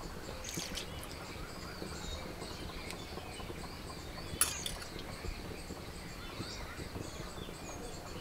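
Quiet open-air ambience with birds chirping now and then over a low steady rumble, light scrapes from a small steel bowl being handled, and one sharp click about four and a half seconds in.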